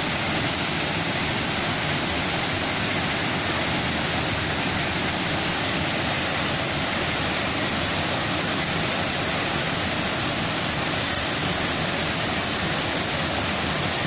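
Waterfall cascades pouring into a rocky pool, a steady unbroken rush of water.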